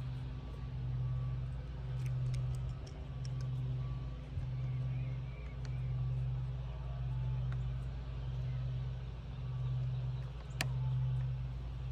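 A low hum that swells and fades about once every 0.8 seconds, under light clicks and one sharp snap near the end. The clicks and snap come from a front mounting clip being worked onto a solar panel frame on a Powerfield PowerRack.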